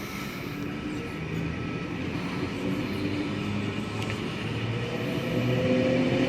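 V-set intercity electric train starting to pull out of the platform. Its motors hum in several steady tones, one rising in pitch near the end, growing louder as it picks up speed.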